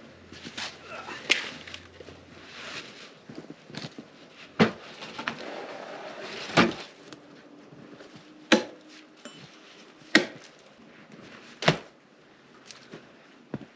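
Pieces of wood knocking against wood, six sharp knocks one and a half to two seconds apart, with rustling in between, as when logs are handled and tossed onto a pile.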